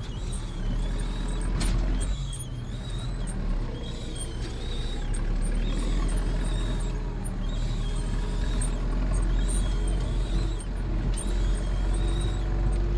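Zetor 7245 tractor's four-cylinder diesel engine running steadily under load while pushing snow, heard from inside the cab. A faint high squeak repeats about once a second.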